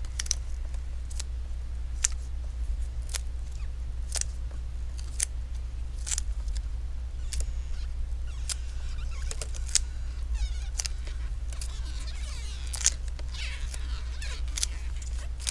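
Double-sided adhesive tape being pulled slowly out from behind a laptop LCD panel: scattered small ticks and crackles, with a few longer soft rasps past the middle, over a steady low hum.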